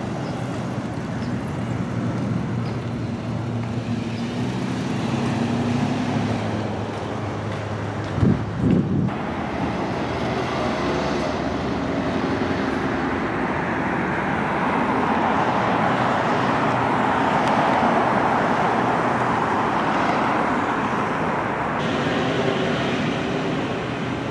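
Motor vehicle traffic: a steady low engine hum with two loud thumps about eight seconds in, then, after an abrupt change, a vehicle passing with its road noise swelling and fading.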